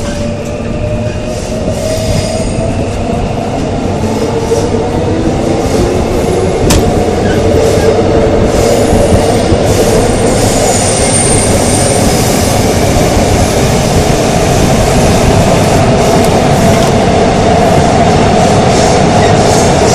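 Korail Line 3 3000-series Mitsubishi GTO-VVVF electric multiple unit heard from inside the car as it gathers speed. The inverter whine rises in pitch over the first few seconds, and the running noise of motors and wheels grows steadily louder, with one sharp click about seven seconds in.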